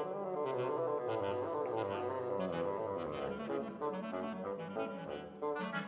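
Chamber wind quartet of oboe, clarinet, basset horn and bassoon playing several interweaving melodic lines, with the bassoon's low part moving underneath.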